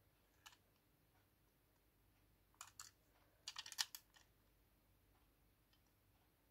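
Faint clicks and taps of fingers handling a small die-cast toy bus: a single click about half a second in, two more a little after two and a half seconds, and a quick run of clicks near four seconds, the loudest.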